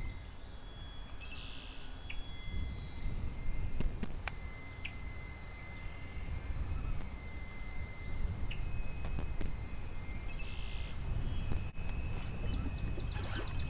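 Wind noise buffeting the microphone, with birds calling in the background and a few sharp clicks.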